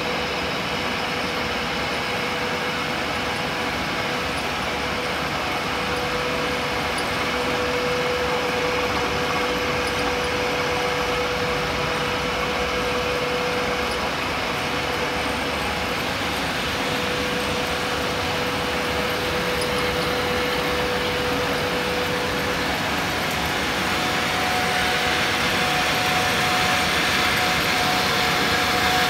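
Steady machinery noise of a PVC wire-coating line, with wire extruders and coiling machines running. A steady hum is held throughout and moves to a higher pitch near the end.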